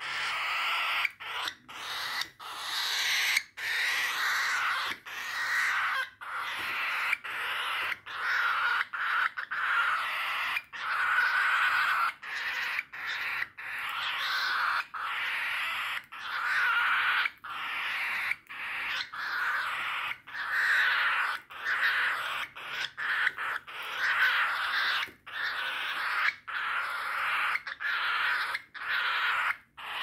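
A hungry cockatiel chick's food-begging calls, given one after another with only brief breaks between them.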